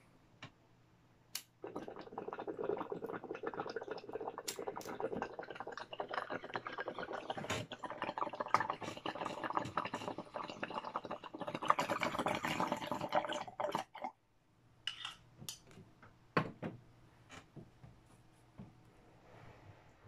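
Water bubbling through a glass percolator bong as a long hit is drawn through it: a dense, crackling burble that runs for about twelve seconds, grows stronger near the end and then stops abruptly. A few light clicks and knocks follow.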